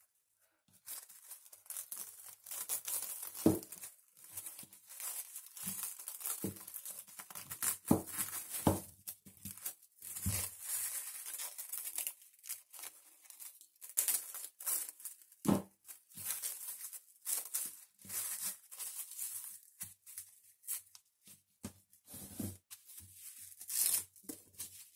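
Plastic cling film being pulled from its roll and pressed around a whole pumpkin, crinkling and crackling irregularly, with a few soft thumps along the way.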